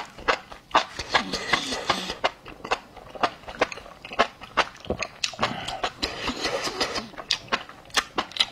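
Close-miked eating of fatty beef slices coated in sesame paste: wet chewing with sharp lip smacks, a few a second.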